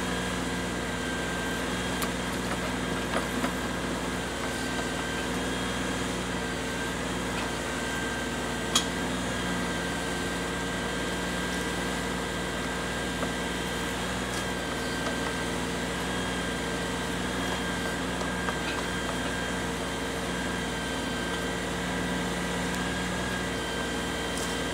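Compact diesel tractor engine running steadily under backhoe work, with a steady whine over it. A few light knocks from the bucket, the sharpest about nine seconds in.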